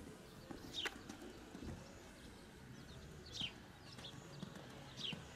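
Soft hoofbeats of a cantering horse on arena sand, with a bird's short falling chirp heard three times.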